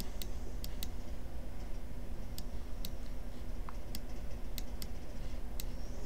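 About nine sharp, irregularly spaced clicks of someone working a computer's controls to fix the screen display, over a steady low hum.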